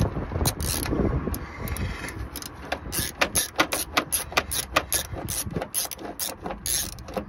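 A socket ratchet clicking in quick runs of short clicks while undoing the nuts that hold the fuel filter carrier, with the busiest run in the middle.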